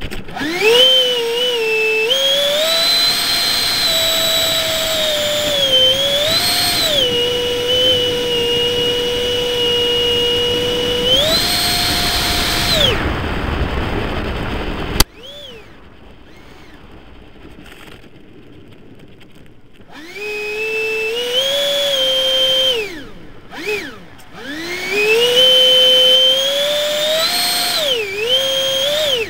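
Radio-controlled F-86 model jet's engine whining as the throttle is worked, its pitch stepping up and down. About halfway through it cuts off suddenly with a click. It then spools up again twice, dipping briefly in between.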